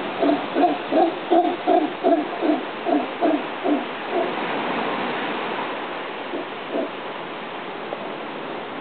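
Howler monkey calling: a rapid run of deep, throaty grunts, about two and a half a second, that fades out after about four seconds, with one more grunt near seven seconds, over a steady background hiss.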